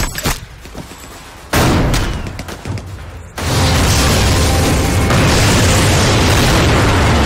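War-film battle sound: a sudden heavy blast about a second and a half in that dies away, then from about three and a half seconds a dense, unbroken din of gunfire and explosions.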